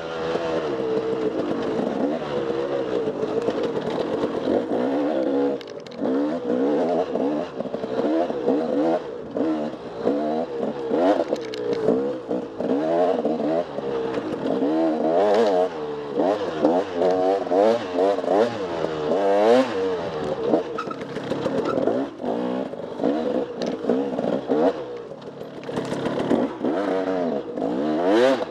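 Off-road motorcycle engine revving up and down over and over as the throttle is worked through an enduro trail, with occasional knocks from the bike over rough ground.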